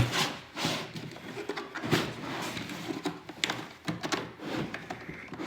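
Irregular clicks, knocks and rattles of metal tools being worked out of a tight-fitting plastic tool-set tray, with the loudest knocks at the start and about two seconds in.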